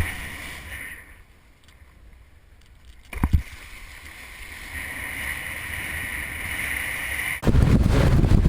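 Wind buffeting the camera microphone. It dies down to a lull about a second in, with a single thump about three seconds in, then builds and comes back loud and gusting near the end.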